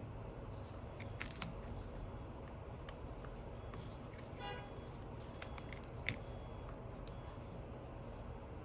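Faint scattered clicks and small ticks of tools and small parts being handled during iPhone reassembly, over a low steady hum; the two sharpest ticks come about five and a half and six seconds in, with a brief faint ringing just before them.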